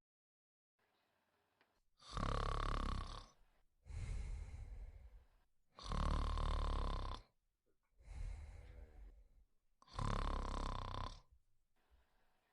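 A woman snoring in her sleep: starting about two seconds in, three loud snores come about four seconds apart, with a softer breath between each pair.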